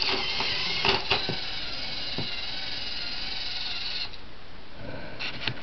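Battery-powered Tomy Trackmaster toy train engines running: a small electric motor and plastic gearing whining on a few steady high tones, with several sharp clicks about one and two seconds in. The whine drops away about four seconds in. The owner says the engines run poorly and need cleaning and a service.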